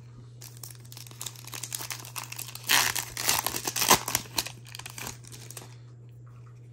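Foil trading-card pack wrapper crinkling and tearing, a dense run of crackles that is loudest around the middle and stops a second before the end.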